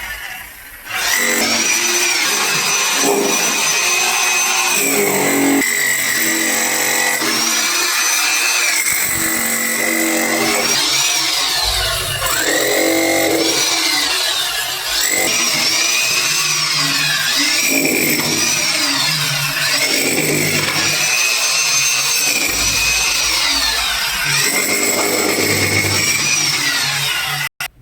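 Handheld electric power tool running almost without a break, its motor whine repeatedly dipping and rising in pitch as the load changes. It cuts off suddenly near the end.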